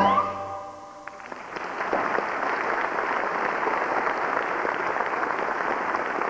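A choir's last sung note ends and the music dies away; about a second in, an audience starts applauding, dense steady clapping that carries on.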